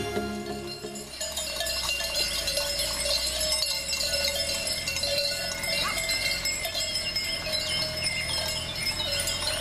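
Small neck bells on a herd of goats and sheep clinking and jingling continuously as the animals walk, over a low steady rumble.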